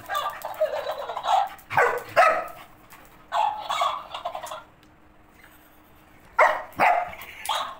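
A young Labrador barking in short separate bursts at a talking cactus toy, mixed with the toy's high-pitched electronic voice repeating the sounds back.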